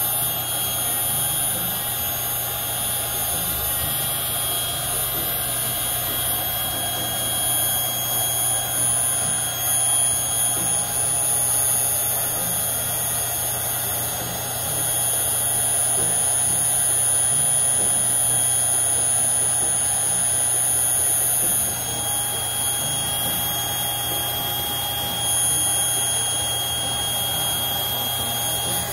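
Handheld electric air pump running steadily with a constant whine, blowing air into the top ring of an inflatable above-ground pool.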